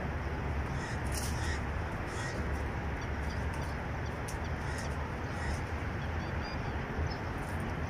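Steady outdoor background noise with a low rumble, broken about five times by brief, high-pitched chirps.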